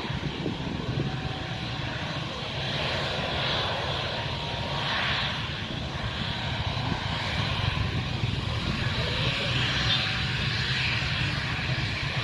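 Jet engines of a Boeing 777 airliner running steadily, a continuous rushing engine noise that grows slightly louder toward the end.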